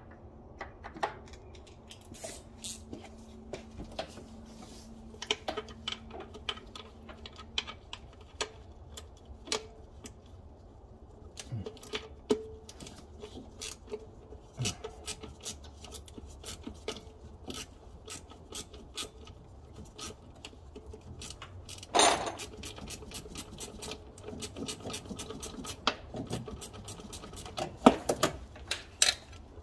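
Hand tools and metal engine parts clicking, scraping and knocking during work at the back of a V6's intake manifold. A louder knock comes about three-quarters of the way in, then quick runs of clicks near the end.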